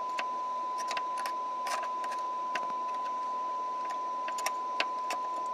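Steady 1 kHz test tone from the Yaesu FT-747GX receiver, heard under a layer of receiver hiss, with scattered small clicks. The tone is a weak test signal being received while the receiver's coils are aligned to cure poor receive sensitivity.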